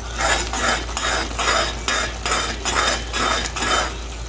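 A large metal spoon stirring and scraping through a bubbling pot of grated coconut in red sugar syrup, about nine regular strokes at roughly two and a half a second. The mixture is still wet and syrupy, not yet cooked down to sugar cake.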